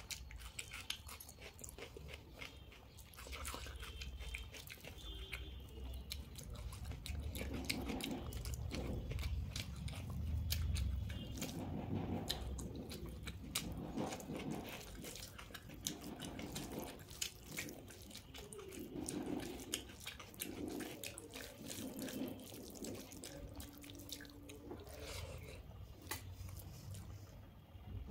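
Close-miked eating sounds of a person chewing soft rice mixed with dal and omelette, eaten by hand: wet mouth sounds with many small sharp clicks and smacks.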